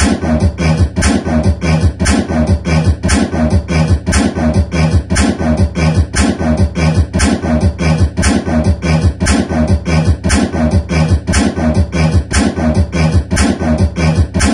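Beatboxing into a handheld microphone: a fast, even beat of mouth-made kick and snare sounds with a continuous deep bass underneath.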